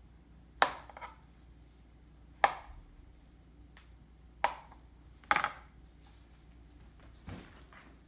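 Kitchen knife cutting down onto a cutting board: four sharp knocks spaced one to two seconds apart, then a softer one near the end.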